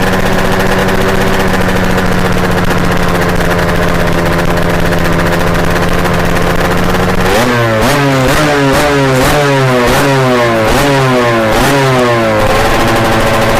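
Kawasaki Ninja R 150 two-stroke motorcycle engine running at a steady speed, then blipped up and down about twice a second for some five seconds before settling back to a steady idle. The owner calls the engine's sound strange.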